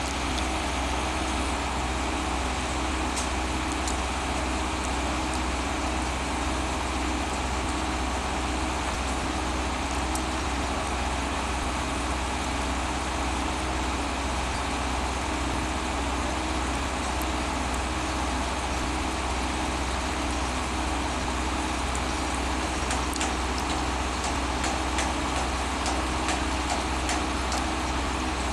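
Engine of a catenary works train idling steadily, with a few faint clicks, more of them near the end.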